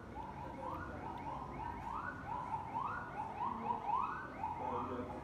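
A siren-like alarm sounding: a repeated tone that holds and then rises in pitch, about once a second.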